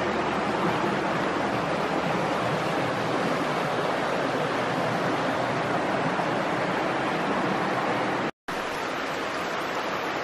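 Steady rushing roar of a nearby waterfall, very loud. It is broken by a split-second gap about eight seconds in, after which it is slightly quieter.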